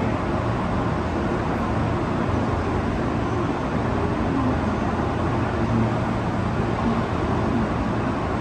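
Steady low rumble of railway station ambience: trains and rail traffic around the platforms, with no single event standing out.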